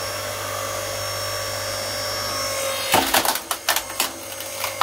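Titan 4-ton electric hydraulic log splitter running, its motor and pump giving a steady hum while the ram pushes into a log. About three seconds in, the log starts cracking and splitting apart in a quick series of sharp cracks.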